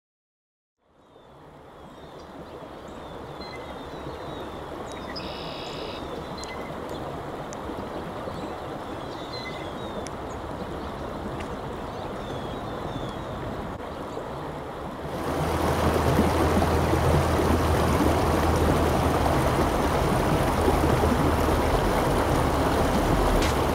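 Shallow creek running over stones: a steady rush of water that fades in about a second in. About fifteen seconds in it gets clearly louder and fuller, at a closer rocky riffle.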